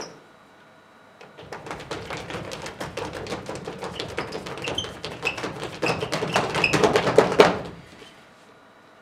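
A group of performers making rapid, uneven percussive taps on stage (body percussion), building louder for about six seconds and then stopping abruptly.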